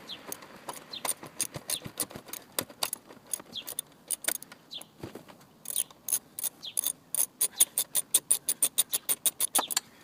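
10 mm socket ratchet clicking as a seat bolt is unscrewed: scattered clicks at first, then a fast, even run of clicks, about six a second, over the last four seconds.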